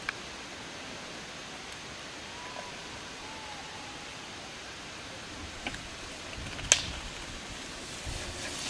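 Steady outdoor hiss. Near the end, a sharp click and a low rumble come in as a mountain bike rolls up close on the dirt and gravel track.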